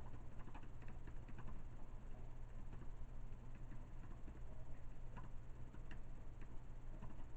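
Light, irregular clicks of a computer keyboard being typed on, a dozen or so keystrokes spread unevenly, over a steady low hum.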